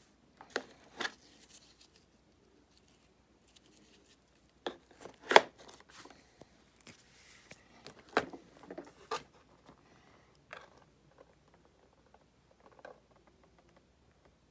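Scattered clicks, knocks and rustling of something being handled, in no regular rhythm. The sharpest knock comes about five seconds in, and no motor is running.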